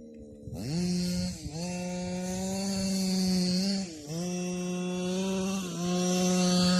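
26cc two-stroke engine of a 1/5-scale RC short-course truck, quiet for a moment, then revving up sharply and running at high revs. It dips briefly three times as the throttle is lifted, about a second in, at four seconds and near six seconds, and is running hard again at the end.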